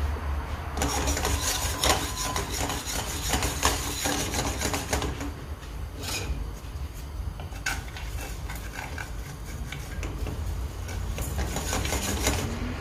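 Kitchen food-preparation sounds: rubbing and scraping with scattered light knocks and clicks, heaviest in the first few seconds and again near the end.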